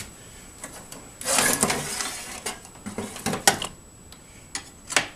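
Handling noises from someone moving close by: a rustling scrape lasting about a second, starting about a second in, then several light knocks and clicks. No saw is running.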